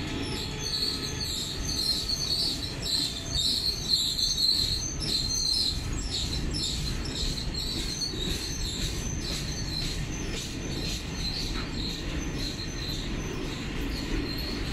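State Railway of Thailand train running by: a steady low rumble with rapid, repeated high-pitched wheel squeals that ease off after about six seconds.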